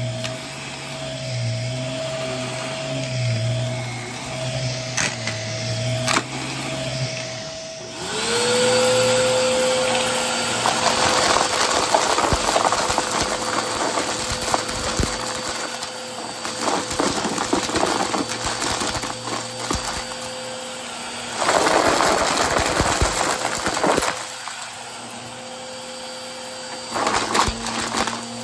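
Vacuum cleaner motor. It starts with a low, pulsing hum; about eight seconds in, the motor spins up to a steady whine over a rush of airflow. The airflow grows louder for a few seconds past the twenty-second mark, then drops back.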